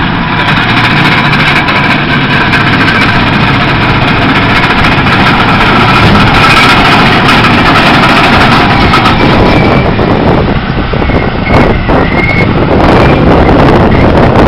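Large wheel tractor scraper's diesel engine running loudly as the machine drives close past.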